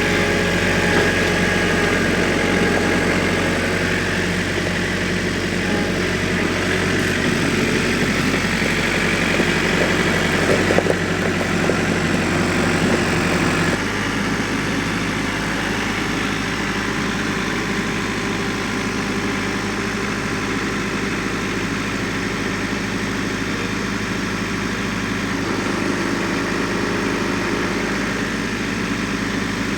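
Compact tractor engine running steadily under work, its low note changing about 14 seconds in.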